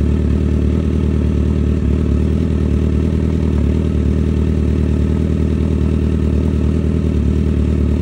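Four-cylinder sportbike engine idling steadily. It is running on freshly fitted spark plugs while being checked for a misfire.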